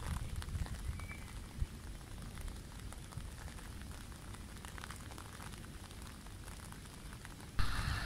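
Wind rumbling on the microphone over the steady rush of a wide river, with scattered light ticks. About half a second before the end a louder hiss comes in suddenly.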